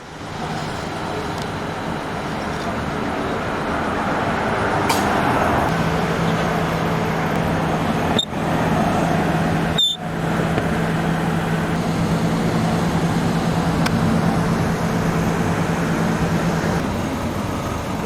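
Road traffic passing on a street, with a steady engine hum from about six seconds in until near the end. The sound drops out briefly twice, a little after eight and ten seconds.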